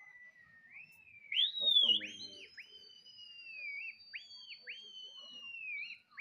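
A pigeon flyer whistling to a flock of pigeons overhead: one long whistle that falls slowly, broken every second or so by quick downward dips, with a louder rising whistle about a second and a half in.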